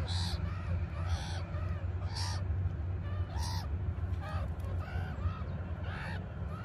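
Meerkats calling: short, rising-and-falling calls, two or three a second, over a steady low rumble.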